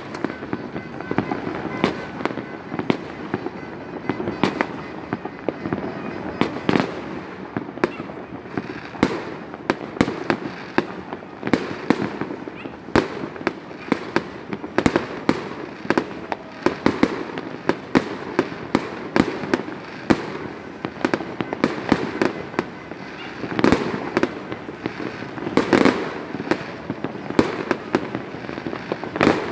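Fireworks and firecrackers going off all over at once: a continuous mass of overlapping bangs and pops, with sharp loud cracks several times a second.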